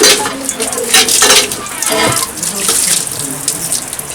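Water pouring and splashing.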